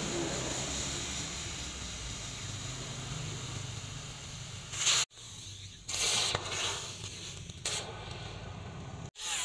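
Red-hot axe head forged from truck leaf-spring steel being quenched in a tank of water, a steady sizzling hiss as the blade is hardened. The hiss breaks off abruptly about five seconds in, returns with a few louder surges, and breaks off again near the end.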